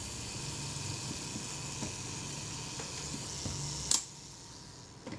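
Self-timer of a Kodak Retina IIIc running down with a steady whirr, its freshly replaced retard gear train running nicely. It ends about four seconds in with one sharp click as the shutter fires.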